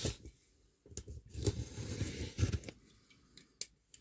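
Cardboard subscription box and its packaging being handled and opened: scattered rustles and light knocks with short pauses between them.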